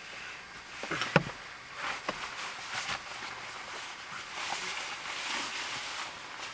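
Handling and movement noise: scattered clicks, knocks and rustling over a faint hiss, with one sharp click a little over a second in.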